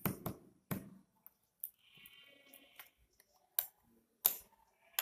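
Glass microscope slides being handled and set down, giving about half a dozen faint sharp clicks and taps. A brief faint high call is heard near the middle.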